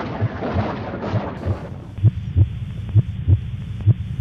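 Heartbeat sound effect: paired low thumps, lub-dub, about once a second. A rumbling noise lies over it for the first two seconds, then drops away and leaves the heartbeat alone.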